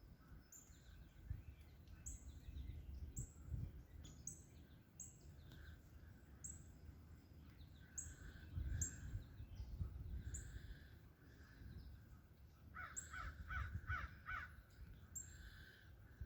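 Wild birds calling faintly: a high, short note repeats about every second, and near the end comes a quick run of about six harsh calls. A low rumble runs underneath.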